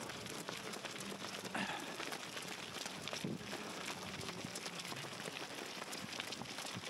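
Running footsteps with rustling and scattered knocks over a steady noisy hiss.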